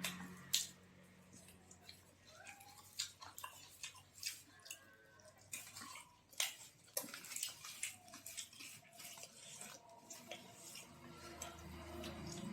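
Eating sounds: irregular small wet clicks and smacks of chewing and mouth sounds, with a few sharper clicks.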